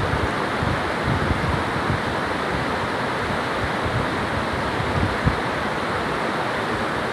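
Swollen, muddy river rushing steadily over rocks and rapids, with a brief low thump a little over five seconds in.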